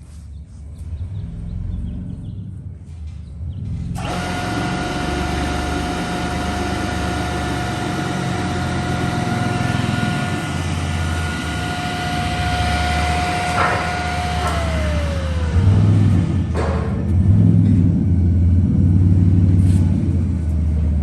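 Hobart 1 hp three-phase dishwasher pump motor starting abruptly about four seconds in and running with a steady whine over a rushing noise for about ten seconds. It is then switched off: the whine falls in pitch as the motor winds down and stops. A low rumble runs underneath throughout.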